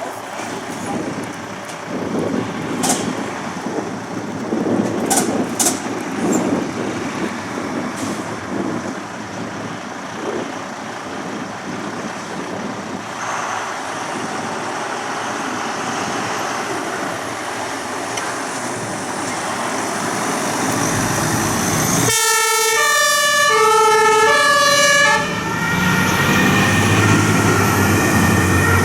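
Fire engines' engines running as the vehicles move out, with a few short clicks early on. About 22 seconds in, a German two-tone emergency horn (Martinhorn) starts sounding, alternating between two pitches, and carries on to the end.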